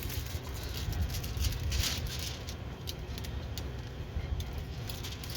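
Diamond painting kit being handled: irregular rustles and small clicks of its packaging over a low steady rumble.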